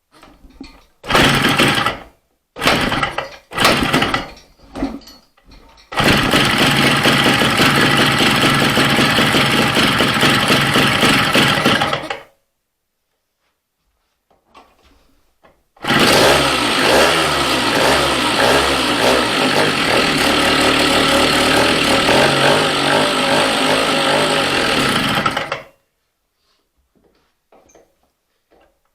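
1969 Rokon's two-stroke engine being started on choke. A few short bursts as it is cranked and catches, then it runs for about six seconds and stops. It is restarted and runs with the pitch rising and falling as it revs for about ten seconds, then cuts off.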